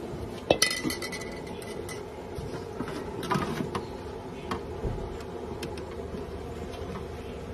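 Clinks and light knocks of a steel idli tray and utensils being handled. A sharp metallic clink about half a second in rings on for a little over a second, over a steady low hum.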